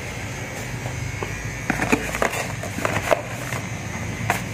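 Small paperboard boxes of tattoo needle cartridges knocking and rubbing against each other and the cardboard carton as they are handled and lifted out, a scatter of short clicks and scrapes. A steady low hum runs underneath.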